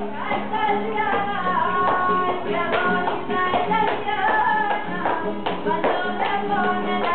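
Flamenco music: a singer's wavering, ornamented vocal line over accompaniment, cut through by sharp percussive strikes every half second to a second.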